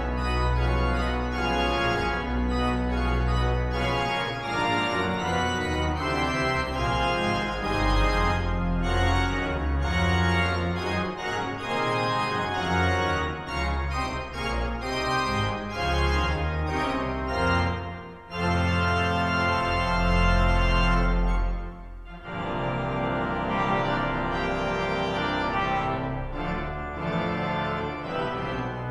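Pipe organ of Leeds Minster playing a piece, sustained chords over strong low pedal notes, with brief pauses between phrases about 18 and 22 seconds in.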